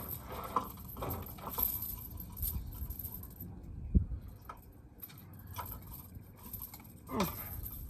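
Scattered light clicks and rattles of gear being handled in a fishing boat, with one sharp thump about four seconds in.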